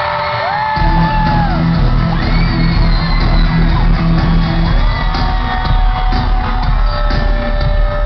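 Live band playing loud music through an arena PA, recorded from the crowd; the drums and bass come in a little under a second in. Fans scream and whoop over the music.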